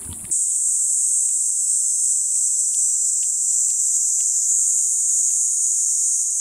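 Steady, high-pitched chorus of summer insects, crickets or katydids, starting abruptly a moment in, with a few faint short ticks beneath it.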